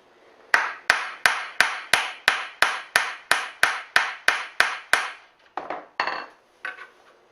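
A hammer tapping a tight metal pin out of a wooden loom beam to free the lamms: a steady run of about fourteen sharp, ringing strikes, about three a second, stopping about five seconds in, followed by a few lighter knocks.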